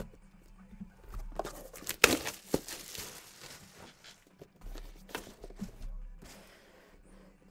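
Packaging being torn open and crinkled by hand. There are sharp rips and rustling, loudest about two seconds in, then scattered handling noises.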